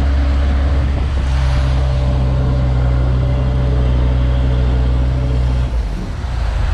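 Heavy diesel engine of a construction machine running steadily with a deep hum. A second, higher steady tone joins about a second in and drops out shortly before the end, where the engine note briefly changes.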